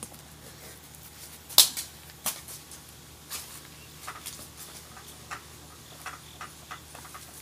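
Scattered short clicks and light slaps, roughly one a second, the sharpest about a second and a half in: flip-flop footsteps on grass and handling of a battered flip phone.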